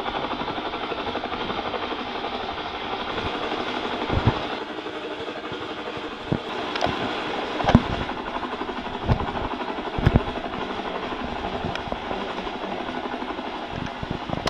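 3D-printed plastic pull-along toy helicopter rolling across a tile floor: a steady, rapid plastic rattle from its wheels and rotor mechanism, with a few sharper knocks along the way.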